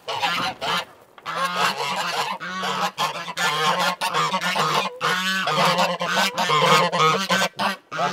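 A flock of domestic waterfowl in their coop, calling loudly with many overlapping, honk-like calls almost without pause, over a steady low hum.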